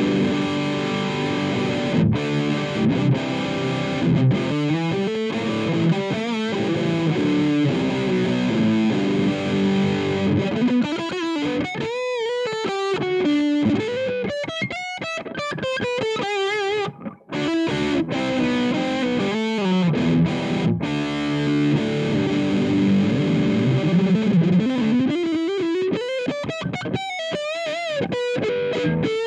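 Electric guitar with a new budget pickup, played through Amplitube 4's distorted amp simulation: chords at first, then single-note lead lines with bends and wide vibrato. The playing breaks off briefly about 17 seconds in.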